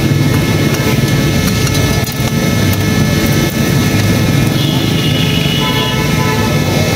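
Steady, loud street-stall noise: a low mechanical rumble under an even hiss, with faint voices and a brief higher tone about five seconds in.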